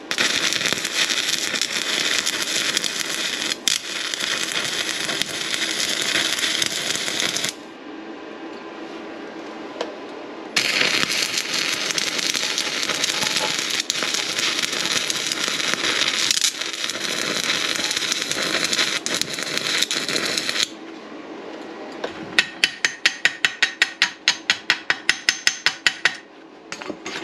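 Stick (arc) welding on the Simder SD5010 Pro multi-process welder: the electrode arc crackles steadily in two long runs, about seven seconds and then about ten, with a short break between. Near the end comes a quick series of sharp metal taps, about four a second, typical of slag being chipped off the fresh weld.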